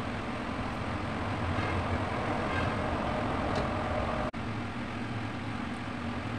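Steady rushing hum, like a fan or motor running, with a low drone underneath; it breaks off for an instant about four seconds in, then carries on.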